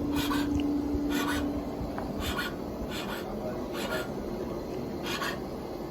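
Hand file rasping on metal in short strokes, about one a second, with a steady low hum during the first second or so.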